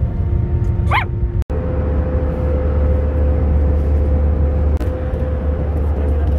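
A small dog under the seat yips once, about a second in, over the drone of an airliner cabin. After a brief cut, the steady low drone of the cabin in flight, with a steady hum over it.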